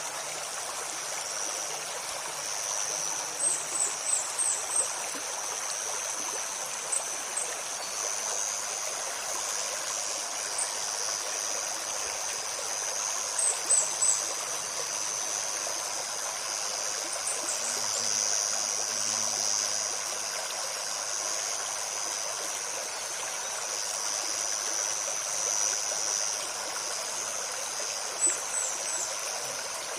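Forest stream flowing steadily, with a constant high insect drone over it. Short high bird chirps come in several quick groups, the loudest a run of about six notes a few seconds in and clusters of three near the middle and near the end.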